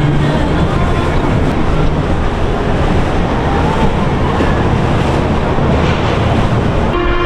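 Loud rushing wind noise on the microphone mixed with the wash of water, as from a boat under way; music cuts in just at the end.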